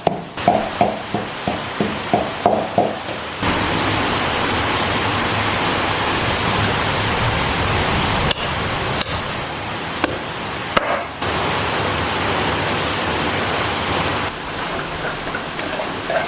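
Knife chopping on a cutting board, about three strikes a second, for the first three and a half seconds. Then a steady rushing hiss with a few sharp clicks takes over.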